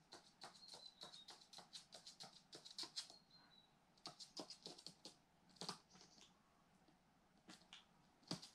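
Faint, quick ticking and tapping of a magpie's claws on a hard floor as it walks and hops. The taps come in rapid runs for the first few seconds, then in short scattered bursts.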